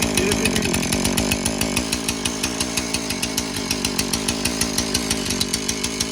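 Two-stroke chainsaw engine running steadily at idle with an even pulsing beat.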